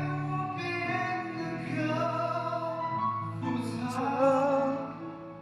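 A young singer performing a Chinese pop song over a backing track, with a held note wavering in vibrato about four seconds in.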